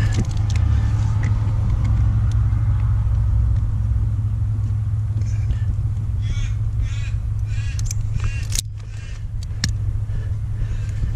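Steady low hum from the car with the ignition on, and from about halfway in a run of short clicks and scrapes as wire strippers work the insulation off a thin red power wire.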